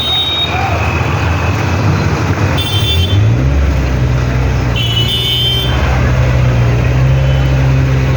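Street traffic: a vehicle engine close by rises in pitch about three seconds in, then runs steadily, over a constant traffic noise, with two short horn honks at about three and five seconds.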